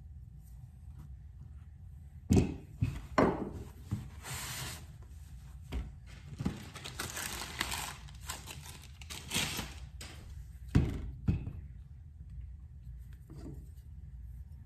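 Knife blade drawn across a sharpening surface in a few rasping strokes, with several sharp knocks as the knife and sharpening gear are handled.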